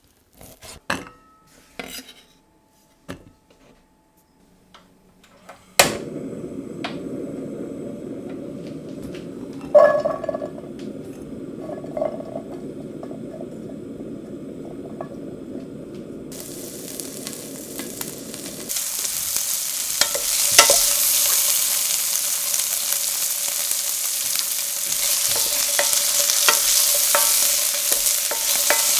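A knife chopping chorizo on a wooden board with sharp separate clicks, then a steady low rush and a few knocks as the diced chorizo goes into a stainless steel pan. From about two-thirds of the way in, the chorizo sizzles loudly as it fries in its own oil and is stirred with a wooden spoon.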